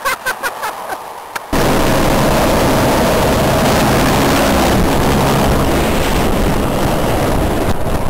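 Helicopter lifting off just overhead: a loud, steady roar of engine and rotor wash battering the microphone. It starts abruptly about a second and a half in, after a few sharp clicks.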